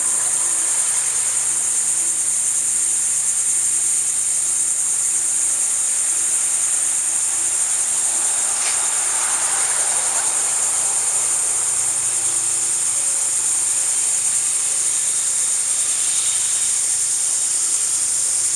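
Steady, high-pitched insect chorus, like crickets, droning without a break.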